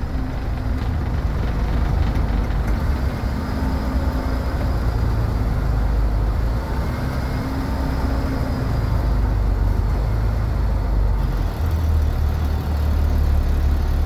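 International DT466E inline-six diesel of a 2004 Blue Bird 3800 school bus running under way, heard from the driver's seat together with road and cab noise. About three-quarters of the way through, the low engine drone becomes steadier and stronger.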